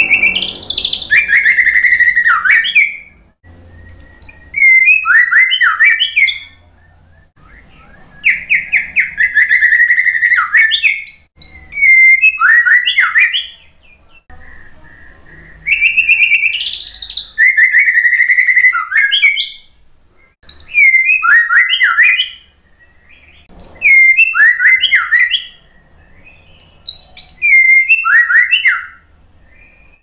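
White-rumped shama singing: about nine loud song phrases of whistled notes and rapid trills, each two to three seconds long, with short pauses between.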